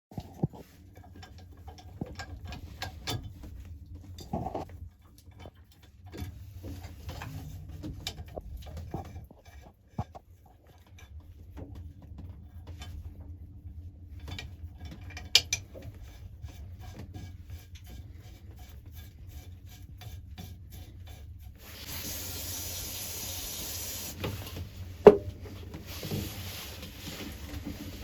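Scattered mechanical clicks, knocks and rubbing, like tool or parts handling, over a low steady hum. A steady hiss comes in twice in the last quarter.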